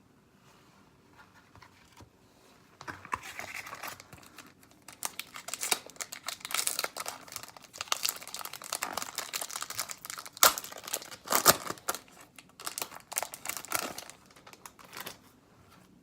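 Wrapper of a hockey card pack crinkling and tearing as the pack is handled and opened, in irregular bursts with a few sharp crackles. It starts about three seconds in and dies away near the end.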